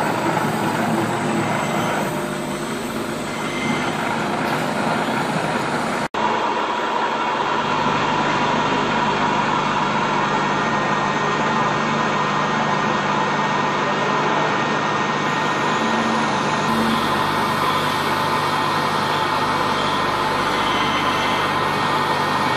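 Metal-turning lathe running steadily, a constant mechanical hum with a held gear whine. The sound drops out for an instant about six seconds in, then resumes unchanged.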